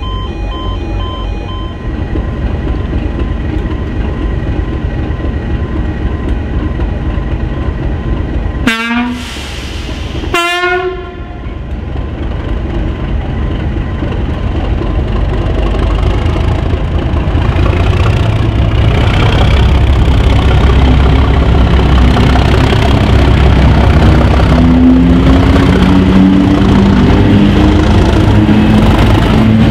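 Class 37 diesel locomotive sounding two short horn blasts, a lower note then a higher one, about nine and ten seconds in. After that its English Electric V12 diesel engine runs louder and louder, a deep rumble with a rising engine note, as the train draws close and passes.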